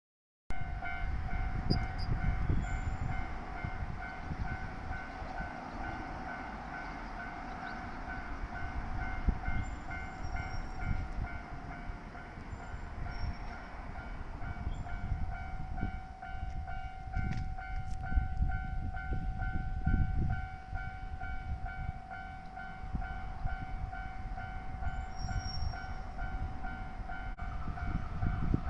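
Japanese railroad level-crossing alarm ringing its electronic bell steadily, about two dings a second, with wind buffeting the smartphone microphone.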